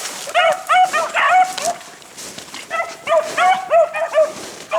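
A pack of beagles baying on a rabbit's track: several dogs give repeated short, arching howls in two bouts with a brief lull between.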